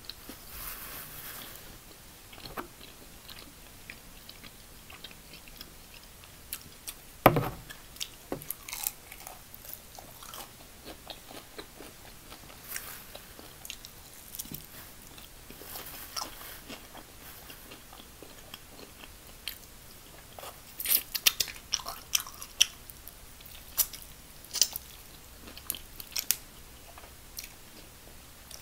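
Close-up biting and chewing of breaded fried chicken wings, with scattered crunches. There is one loud sharp click about seven seconds in, and a quick run of crunches around twenty-one seconds in.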